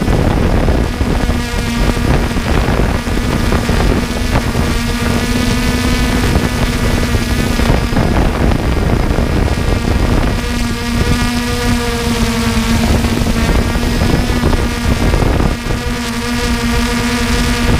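Quadcopter drone's motors and propellers running in a steady hover, a loud constant-pitched buzz, with wind noise on the microphone.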